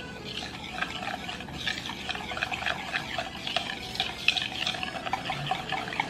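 A spoon or whisk stirring quickly in a bowl, with rapid scraping and light clinking against the sides, as a glaze is mixed.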